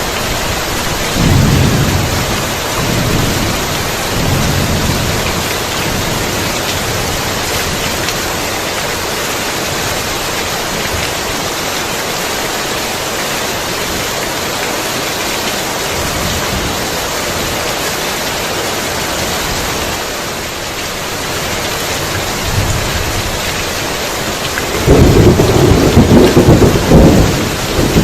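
Heavy rain falling steadily, with rolling thunder: a few low rumbles in the first seconds, then a loud, long thunderclap starting near the end.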